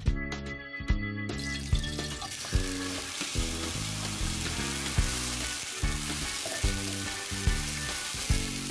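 Ground pepper mixture hitting hot palm oil in an aluminium frying pan and being stirred with a spatula. It sizzles steadily from about a second in, over background music with a steady beat.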